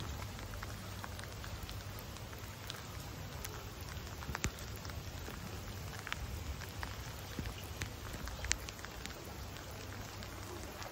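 Rain falling steadily, with scattered ticks of single drops and two sharper ticks about four and a half and eight and a half seconds in.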